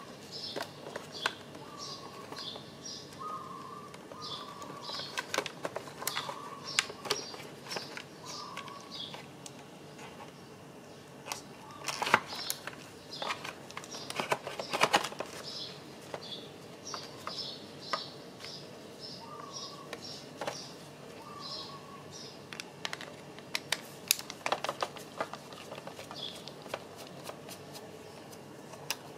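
Clicks, taps and rattles of hard plastic folding side-mirror parts and a wiring connector being handled and worked apart, in clusters with the busiest bursts about twelve, fifteen and twenty-five seconds in. Short bird chirps repeat in the background.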